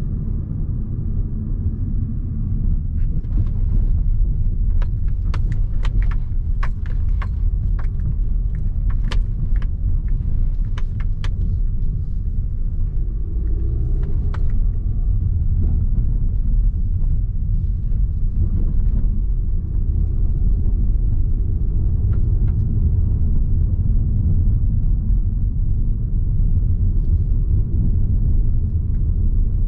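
Audi Q3 with a 1.4-litre petrol engine driven over rough, unpaved ground: a steady low rumble of tyres, suspension and engine. A run of sharp clicks and knocks, likely stones or bumps striking the car, comes a few seconds in and lasts several seconds, with a few more later.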